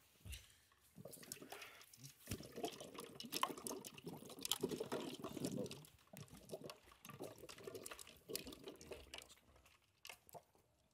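Faint pouring and splashing of liquid into a cup, in uneven spurts, with scattered light clicks and knocks of bottles and cups on the counter.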